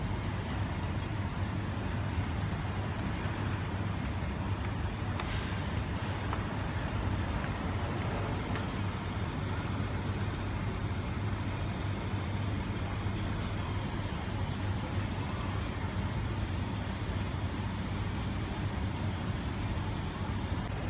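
Steady background hum and noise with a low, even drone; no distinct events stand out.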